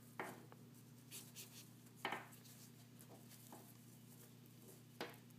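Faint rubbing and rustling of paracord being pulled through the bracelet weave and snugged tight, with three short sharp ticks: one near the start, one about two seconds in and one near the end.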